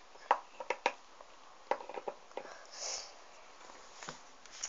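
Small plastic toy figures and a toy cart being handled and set down on a toy stage: a scatter of light clicks and taps, with a short breathy sniff about three seconds in.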